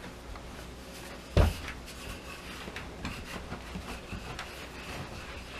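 Wooden rolling pin working firm, refrigerator-chilled butter pie-crust dough on a floured pastry cloth: faint rubbing and light knocks, with one louder thump about a second and a half in.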